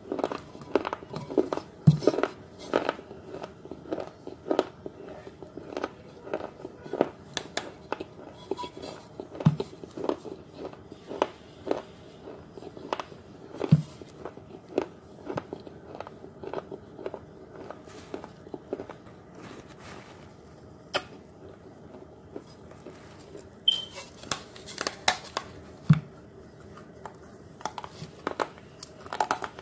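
Close crunching and chewing of a clay pot as pieces are bitten off. Sharp crunches come several times a second, with a few heavier bites every few seconds.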